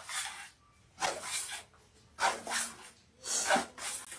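Ribbon being pulled off a spool in four separate pulls, each one a short rustling swish.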